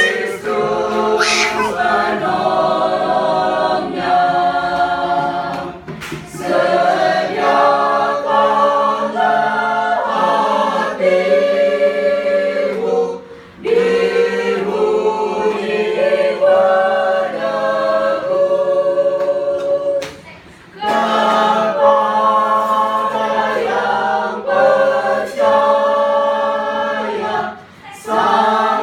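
Church choir singing, phrase after phrase, with short pauses between phrases about every seven seconds.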